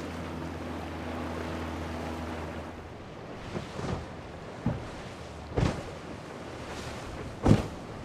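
A boat's outboard engine runs with a steady drone, then the boat slaps through choppy waves with a string of splashes and hull slaps, the loudest near the end.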